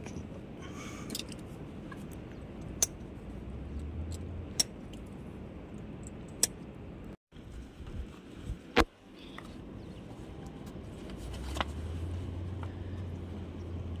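Plastic life-jacket buckles and straps clicking as they are fastened: several sharp single clicks a couple of seconds apart, the loudest about nine seconds in, over a steady low rumble.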